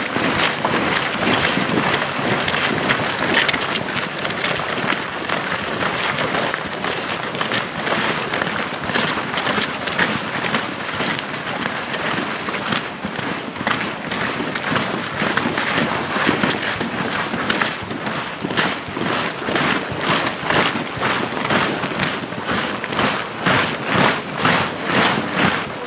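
Boots of a large column of soldiers marching on a snow-covered road, heard as a dense tramp of many footsteps. About two-thirds of the way through, the steps fall into an even beat of about two a second.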